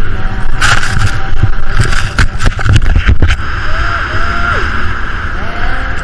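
Wind rushing over a rider-mounted camera's microphone as a snowboard runs fast over snow, with a run of sharp scrapes from the board's edges in the first half.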